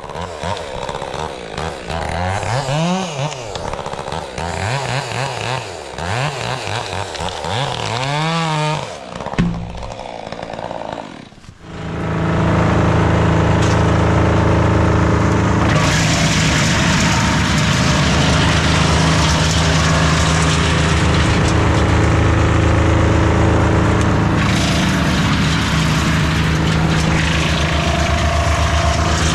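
Chainsaw revved up and down several times, then after a brief drop about twelve seconds in, running loud and steady at high speed.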